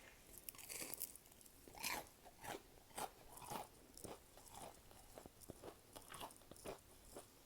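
Close-miked eating: biting and chewing crunchy tempura shrimp, a run of short crisp crunches about every half second.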